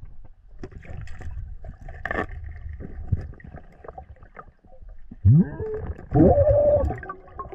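Underwater audio from a diver's mask-mounted camera: scattered clicks and low sloshing of moving water. Near the end come two loud, muffled pitched sounds through the water, the first rising in pitch and the second held for about a second.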